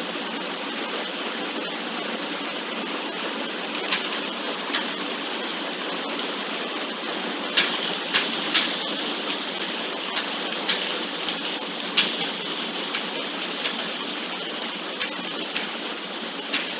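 Gearbox running with a steady grinding hiss, with irregular sharp clicks breaking in, more often in the second half.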